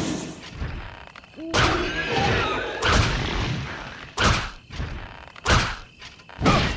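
Yumi longbow shots: five sharp thumps, each followed by a short ring, spaced a little over a second apart.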